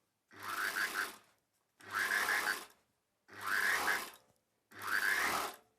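Electric sewing machine stitching a seam in short runs: four bursts of about a second each, stopping and starting at an even pace.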